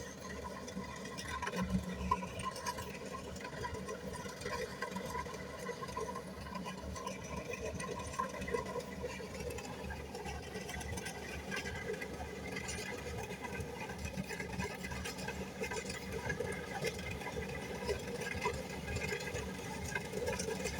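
Kubota rice combine harvester running steadily, a continuous engine and machinery drone whose tone shifts slightly about ten seconds in.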